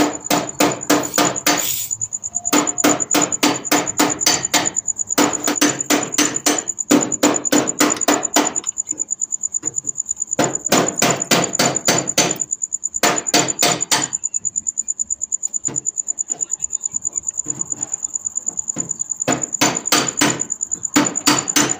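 A hammer striking metal in quick runs of evenly spaced blows, about five a second, with short pauses between runs. A steady high-pitched whine sounds underneath.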